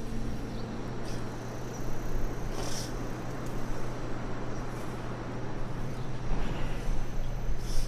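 Room tone picked up through an open microphone: a steady low hum and hiss, with a few faint clicks.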